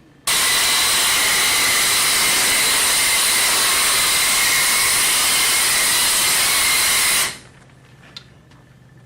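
EXAIR Vac U Gun, a compressed-air powered vacuum/blow gun in blow mode, sending out a loud, steady blast of air. It starts suddenly near the start and cuts off about seven seconds in, followed by a few faint clicks.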